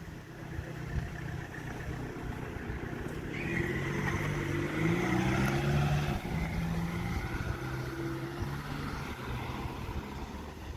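A motor vehicle's engine passing close by, getting louder toward the middle and then fading away, over a low background rumble.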